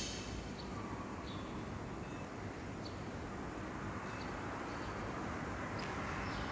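Steady outdoor background noise with a few faint short ticks.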